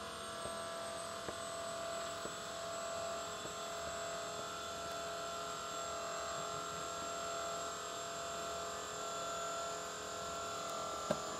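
Electric motor of a Carolift 6900 wheelchair-loading crane running steadily as it lowers a power wheelchair, a steady whine with fixed tones. A single sharp click comes near the end.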